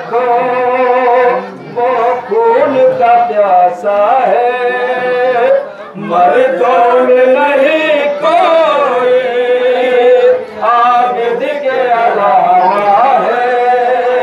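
A man's voice chanting a noha, a Shia mourning lament, into a microphone, unaccompanied. He sings long held, wavering notes in phrases, with short breaks between them.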